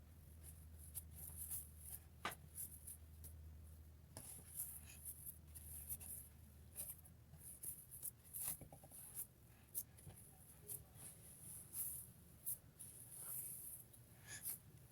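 Faint, scattered scratching and clicking from hands handling something close to the microphone, over a low steady hum.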